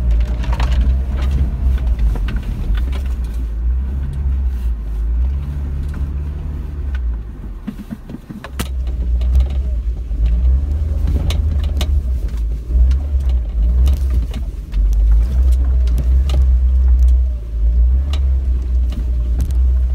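Old Daihatsu off-roader driving over rough, slippery ground: a steady low engine and drivetrain rumble with scattered knocks and rattles. The rumble eases off briefly about eight seconds in, then picks up again.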